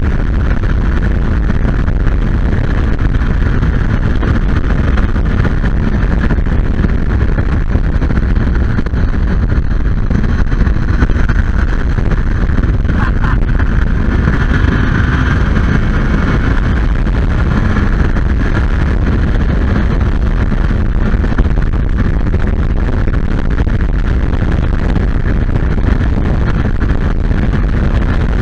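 Steady rush of wind and road noise with an engine droning underneath, from a vehicle moving at speed.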